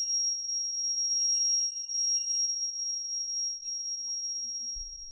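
A steady, high-pitched whistling tone from the lecture's sound system, typical of microphone feedback or electronic whine. Fainter higher and lower tones come and go alongside it, and it begins to fade near the end.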